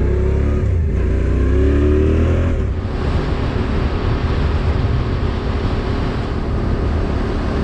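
Motorcycle engine accelerating, its pitch rising for the first few seconds, then running steadily at road speed under a heavy rush of wind noise on the microphone.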